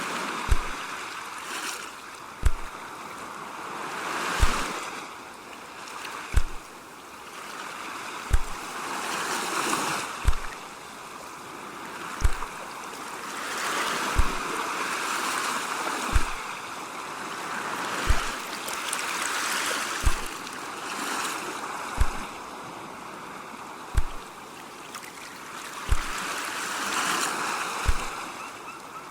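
Ocean waves washing in and out in slow swells, with a short, low thump repeating about every two seconds over them.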